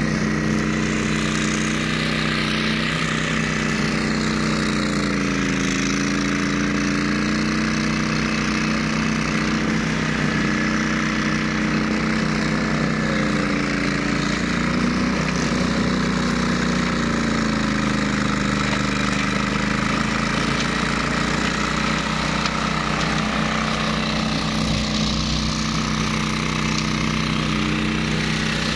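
Engine of a ride-on flail mower running steadily, its pitch dipping briefly and recovering a few times.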